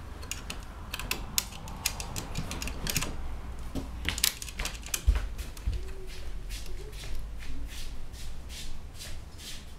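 Irregular small clicks and taps of hands and metal parts working at a nut on the 3D printer's belt tensioner, which is stuck and won't come undone. There is a single louder thump about five seconds in.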